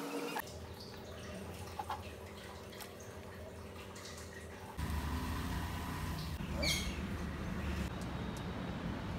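Faint wet dripping and squelching of a hand mixing chopped onion into batter in a steel bowl. About five seconds in, this gives way to a steady low outdoor background rumble.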